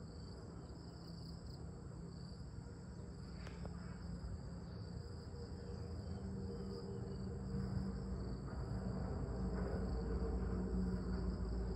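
Insects trilling steadily, high-pitched and continuous. A low rumble underneath grows louder over the second half.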